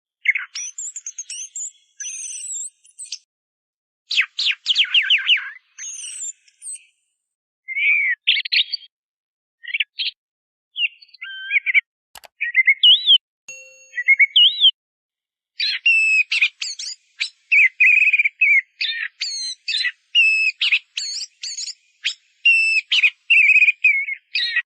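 Orange-headed thrush singing a varied song of quick whistled and chattering phrases, broken by pauses at first. In the second half it becomes a fast, nearly unbroken run of phrases.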